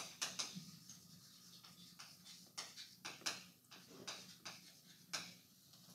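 Chalk tapping and scratching on a blackboard as a word is written: about ten short, sharp strokes at an uneven pace.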